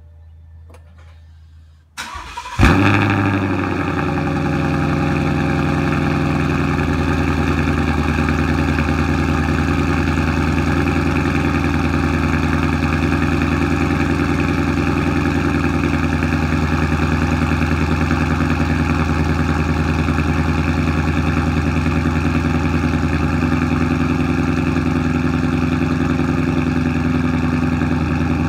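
2016 Mustang GT's 5.0 V8 cold-starting through a Roush axle-back exhaust with resonator-delete H-pipe: after a faint hum, the engine catches about two and a half seconds in with a loud flare, then settles into a steady idle.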